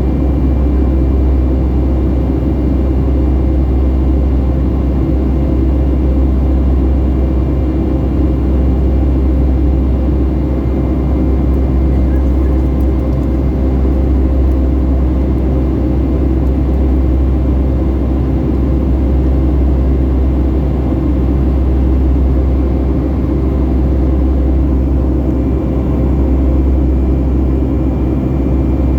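Steady drone of a Boeing 757-300's jet engines and airflow heard from inside the passenger cabin, a deep rumble with a constant hum that holds level throughout.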